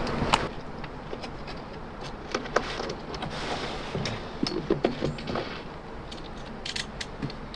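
Insulation board being cut and handled: scattered light taps, clicks and rustling scrapes, with a short cluster of sharp ticks about five seconds in.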